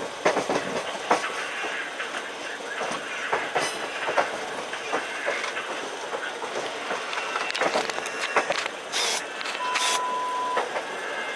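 Indian Railways passenger train rolling through a station yard, its wheels clattering and clicking over rail joints and points, heard from aboard. A short steady high tone sounds about ten seconds in.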